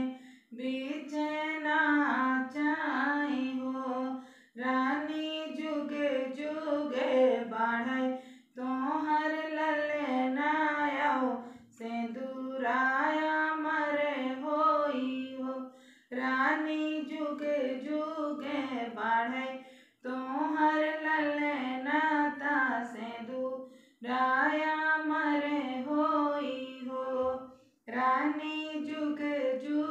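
A woman singing a sohar, a North Indian folk song for a child's birth, unaccompanied. She sings in phrases of about four seconds with short breaks between them, the melody bending up and down within each phrase.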